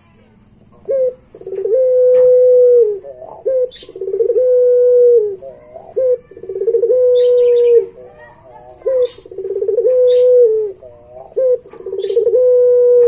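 Puter pelung, a long-cooing Barbary dove strain, cooing in a repeated phrase: each time a short note, then a pulsing rise into a long, loud held coo that drops at its end, five times over.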